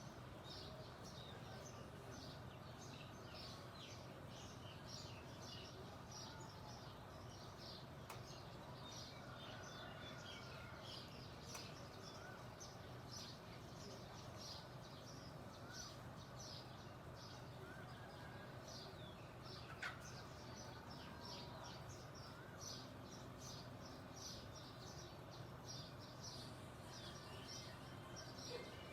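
Songbirds chirping in a dawn chorus: many short, high chirps repeating thickly and without a break, over a faint steady low background rumble.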